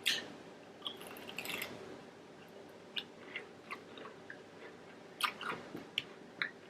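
Close-up mouth sounds of someone eating: chewing and biting food, with scattered short clicks and small wet crunches.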